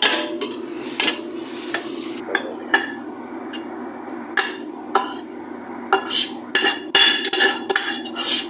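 A metal slotted spoon scraping and knocking against a stainless steel pot as cooked vermicelli is pushed out of it. The sharp clinks come in quick succession in the last couple of seconds, over a steady low hum.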